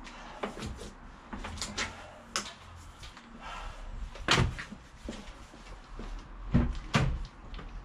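A run of knocks and bumps as a tank-type air compressor is shoved and settled on its side in a car's boot. The loudest knock comes about halfway through, and two more come close together near the end.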